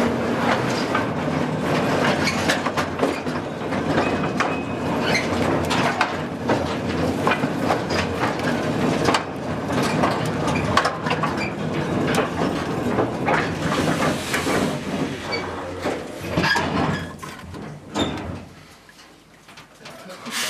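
Mine transport carrying miners underground, rattling and clattering with a steady low hum and many sharp metal clanks; it fades away near the end.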